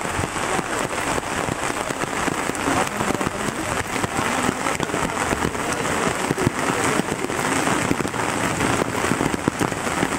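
Steady rain falling on shallow floodwater: a continuous hiss made of countless small drop splashes.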